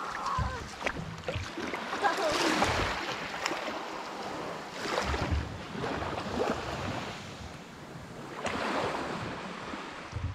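Small waves washing onto a pebble beach, swelling and fading every two to three seconds, with wind rumbling on the microphone.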